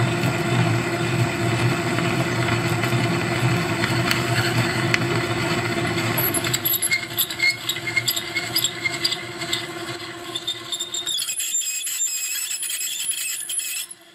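WMW BT10/2 drill press running while a 13 mm twist drill bores into a metal plate, the bit squealing and chattering as it cuts. About eleven seconds in the low motor hum drops away, and the high squealing goes on until it stops abruptly near the end.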